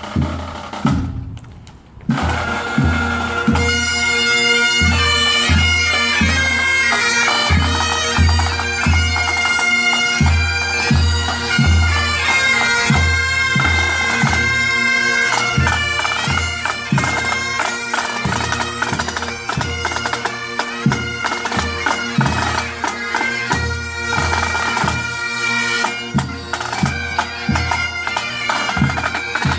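A pipe band playing: Highland bagpipes sound a tune over their steady drone, with drums keeping a regular beat. The pipes come in about two seconds in.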